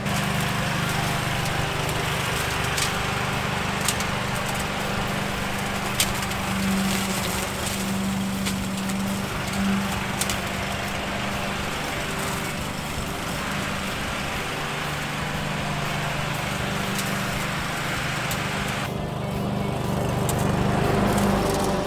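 Petrol walk-behind rotary lawn mower running steadily, its engine humming over the whir of the blade, with a few sharp clicks along the way.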